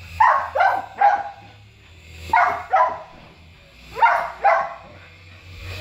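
Small dog barking at a toy helicopter: seven short barks in three bunches, three quick ones, then two, then two more.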